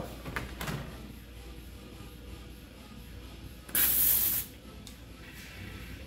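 A short, loud hiss of compressed air, lasting under a second and coming about four seconds in, from an air-hose inflator chuck with a pressure gauge at the valve of a tubeless mountain-bike tyre being inflated.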